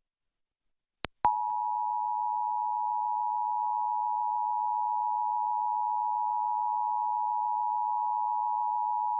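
Emergency Alert System two-tone attention signal (853 Hz and 960 Hz together) sounding steadily for about eight seconds. It starts a little over a second in, right after a short click. The tone announces an emergency alert, here a required monthly test, with the spoken message to follow.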